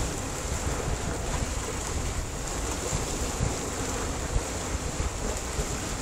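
Sea waves washing and splashing against a rocky shore, a steady surge with no single large break, and wind rumbling on the microphone.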